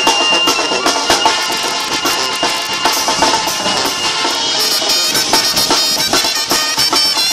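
Mexican banda brass section of trumpets, trombones and a sousaphone playing a tune live, with percussion hits.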